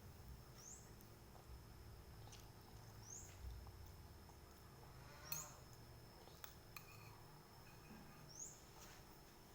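Near silence with faint eating sounds: a few soft mouth clicks and smacks while chewing noodles, the sharpest about halfway through, and several short high rising chirps.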